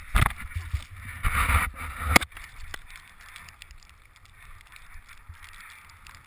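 Rustling and scraping noise from a helmet-mounted action camera as a skier moves about in the snow, with a sharp knock about two seconds in, then a quieter steady rush of snow and air.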